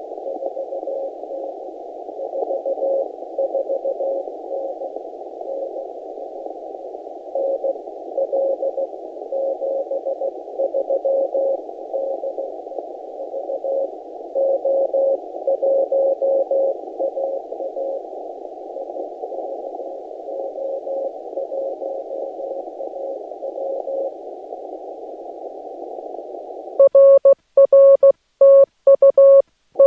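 Morse code from a Yaesu FT-891 HF transceiver: a mid-pitched tone keyed in dots and dashes over steady band hiss squeezed through the narrow CW filter, as stations on the band are received. About 27 seconds in the hiss cuts out and a louder, clean keyed tone takes over, with silence between the characters: the radio's sidetone as the operator sends.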